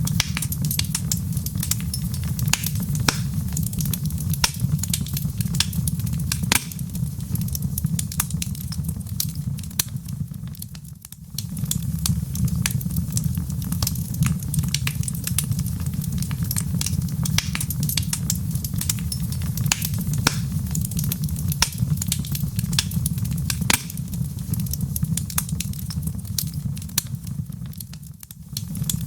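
Wood fire burning in a fireplace: a steady low rumble of flames with frequent sharp crackles and pops from the burning logs, dipping briefly twice.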